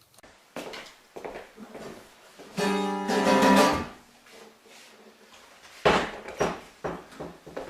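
Guitar music: plucked and strummed notes, with a loud ringing chord about three seconds in.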